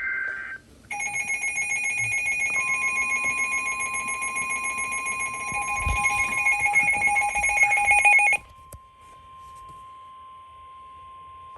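NOAA Weather Radio emergency alert: the tail of a warbling SAME data burst, then a loud pulsing electronic alarm that stops about eight seconds in, with the steady 1050 Hz warning tone starting a couple of seconds in and sounding on alone after the alarm cuts off.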